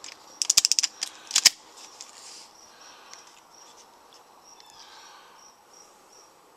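A quick run of sharp mechanical clicks, then one louder click, as a break-barrel air rifle is handled and readied. After that, faint steady insect chirping while the rifle is held aimed.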